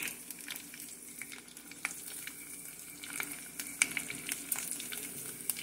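Dried squid frying in shallow oil in a pot: a steady sizzle with frequent small crackling pops as the pieces are turned with metal tongs.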